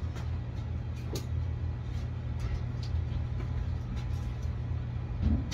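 Steady low hum, with a few faint clicks and taps from a cardboard box being handled.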